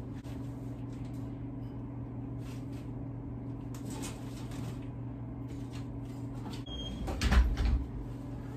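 Steady low room hum with scattered light metallic clicks and rattles from the wire cage doors as a cat climbs one. About seven seconds in comes a louder knock and rattle, like a door or cupboard being shut.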